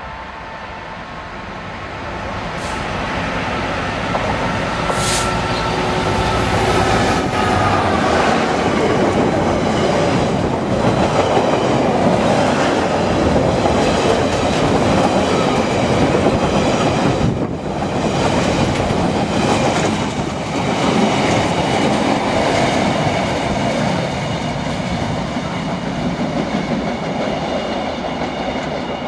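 Diesel-hauled freight train passing at speed: the locomotive's engine approaches and goes by with a falling pitch, then a long rake of box wagons rumbles and clatters along the track with high ringing tones from the wheels.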